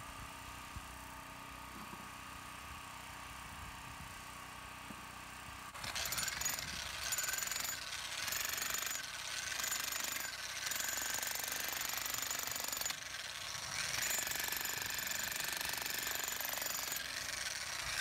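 Portable generator running steadily. About six seconds in, an electric demolition jackhammer starts breaking up sandstone and runs in long stretches with a few brief pauses.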